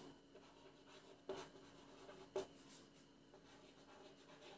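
Faint scratching of writing by hand: a few short strokes with quiet between, the clearest about a second in and about two and a half seconds in.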